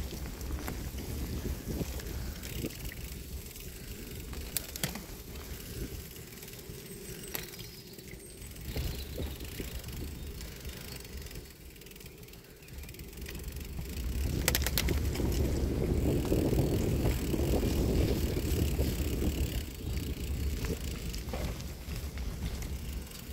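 Bicycle rolling over a rutted dirt and gravel track: a steady rumble of tyres and rattle of the bike, with a few sharp knocks from bumps. The rumble grows louder for several seconds past the middle.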